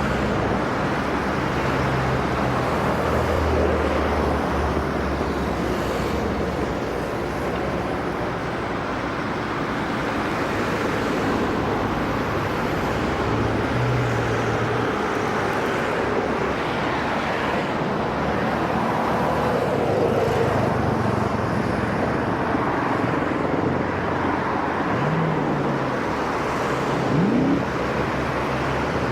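Steady outdoor engine noise: a low engine hum that shifts in pitch over a constant rushing background, with a short rising engine note near the end.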